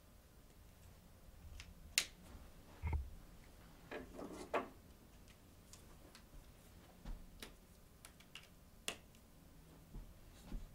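Faint scattered clicks and light taps, with brief rustles around three and four seconds in, from a felt-tip marker being handled at a paper flip chart.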